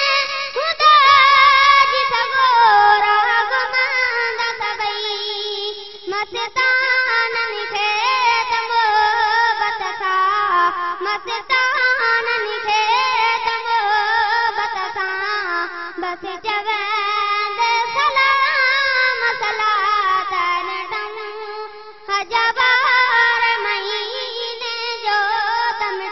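A boy's solo voice singing a Sindhi naat unaccompanied, in long, ornamented, wavering melodic phrases, with brief breaks between phrases about six and twenty-two seconds in.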